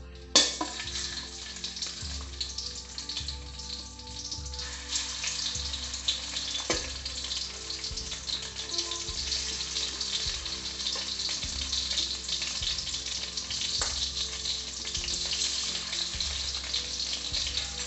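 Marinated chicken tikka pieces sizzling in hot oil in a steel pan as they are laid in one by one. The sizzle starts sharply about half a second in and gets a little louder as more pieces go in, with a few light clicks.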